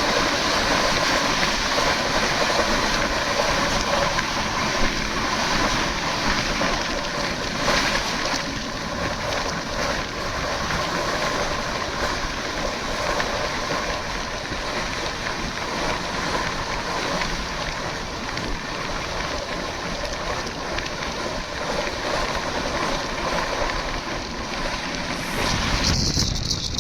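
Howrah Mail passenger train running at speed: a steady rumble and rush of wheels on track and air. The noise changes abruptly near the end.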